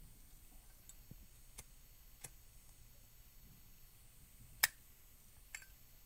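Zippo lighter being handled: a few faint clicks, then one sharp metallic clack of its hinged steel lid snapping shut about three-quarters of the way in, with a smaller click soon after.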